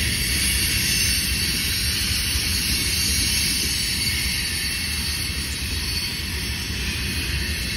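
Freight train of covered hopper cars rolling past, a steady even noise of wheels on rails with a low rumble underneath.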